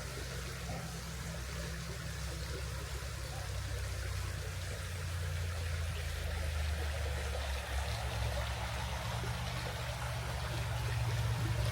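A river flowing steadily over stones, an even rush of water, with a low rumble underneath that swells from about a third of the way in.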